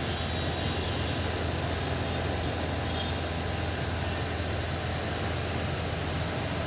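Steady low mechanical hum with a hiss over it, unchanging throughout.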